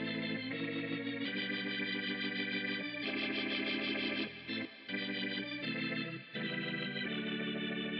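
Background music: sustained organ-like keyboard chords that change every second or so, dropping out briefly twice around the middle.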